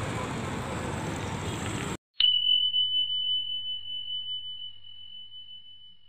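An even hiss of outdoor street noise cuts off about two seconds in. A single bright bell-like ding then rings out on one high note and fades slowly over about four seconds.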